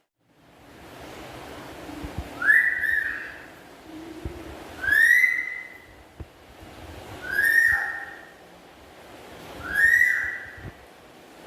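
Black-capped lory whistling: four separate whistles about two and a half seconds apart, each rising quickly and then holding one steady note.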